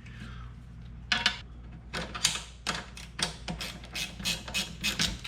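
Muffler hanger clamp being fitted onto a bolt on the kart's frame: light metal clicks and clinks, a quick run of sharp ticks about three a second from about two seconds in.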